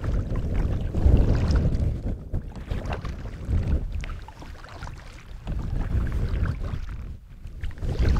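Wind buffeting the microphone in gusts while a kayak is paddled, with water splashing around the hull.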